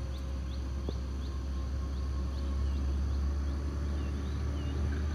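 A bird calling in a fast series of short rising chirps, about three a second, which change to a few falling notes about halfway through. A steady low rumble runs underneath.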